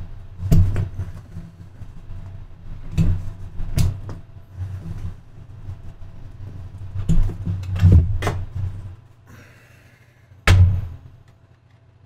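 Irregular thumps and knocks of a power supply being worked loose inside a steel PC tower and lifted out, about seven in all, with the loudest a little past ten seconds. A short rustle comes just before it.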